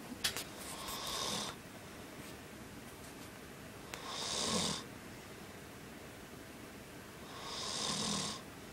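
A man snoring in deep sleep: three long, noisy snores about three and a half seconds apart. A few sharp clicks come just before the first snore.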